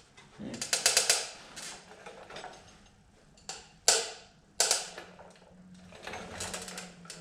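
Ratchet wrench clicking in quick short runs, with a couple of sharp single clacks of metal tools and parts in between.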